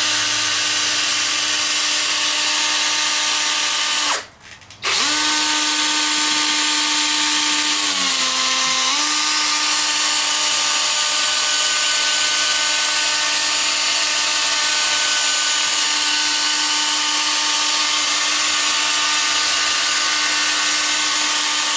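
DeWalt drill at its lowest speed setting spinning a 500-grit sanding disc against a plastic headlight lens: a steady motor whine over the hiss of the disc on the plastic. The drill stops about four seconds in and restarts within a second, and its pitch dips briefly a few seconds later before settling again.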